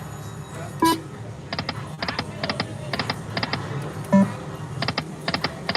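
Slot machine sound effects: quick pairs of short electronic ticks repeating a few times a second. A brief tone blips about a second in and again about four seconds in.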